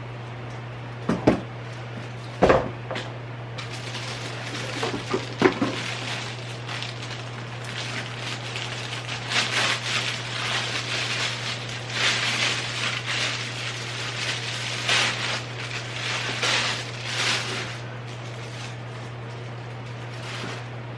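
Belongings being handled while unpacking: sharp knocks about a second, two and a half and five and a half seconds in, then rustling and shuffling of items, over a steady low hum.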